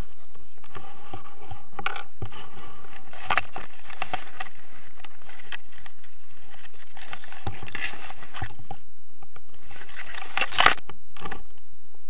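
Rustling and scraping close to a harness-mounted camera as paraglider lines, harness gear and leafy branches brush against it during a landing, with irregular clicks and knocks. The loudest cluster of sharp clicks comes about ten seconds in.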